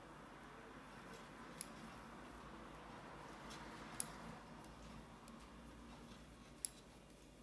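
Knitting needles clicking faintly as stitches are knit, with three sharper clicks spread through, over faint room noise.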